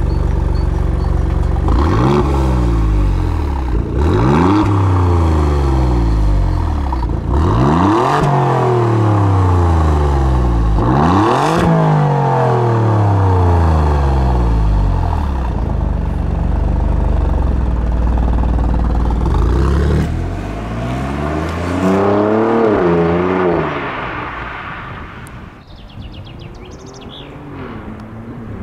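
Alfa Romeo Giulia Quadrifoglio's 2.9-litre twin-turbo V6, with the petrol particulate filter (OPF) exhaust, at the quad tips: idling, revved sharply four times with each rev falling quickly back to idle, then a run of quick blips. The sound drops away near the end.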